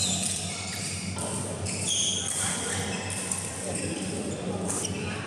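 Badminton play in a large sports hall: sharp racket strikes on the shuttlecock and short squeaks of court shoes on the court mat, ringing in the hall, over a steady low hum.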